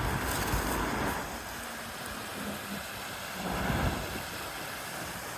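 Steady rushing of water in a flooded stream.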